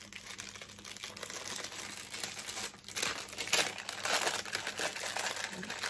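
A small striped paper bag being handled and opened: continuous crinkling and rustling of paper, with a louder flurry of crackles about three seconds in.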